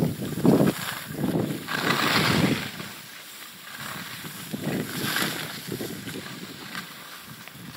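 Skis swishing through powder snow in a series of turns, with wind noise on the microphone; the rushing sound comes in swells, loudest about two seconds in and again about five seconds in.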